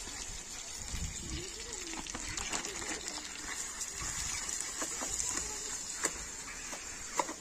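Pieces of raw meat tipped from a plastic bag into a hot pan of butter, sizzling with a steady hiss and many small crackles, along with the crinkle of the plastic bag.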